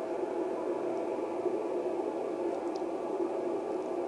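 Icom IC-7300 transceiver's speaker giving a steady hiss of FM receiver static on 10 meters, with a repeater's weak signal just barely coming in and nobody talking on it.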